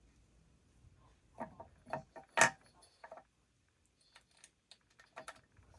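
A series of light metallic clicks and clinks in two short clusters, the loudest about two and a half seconds in: small metal parts and tools being handled on a workbench.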